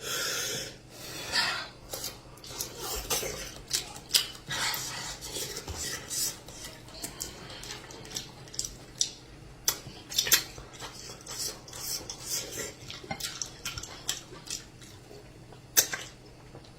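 Tableware clinking and scraping during a meal, with irregular sharp clinks throughout and one loud clink near the end.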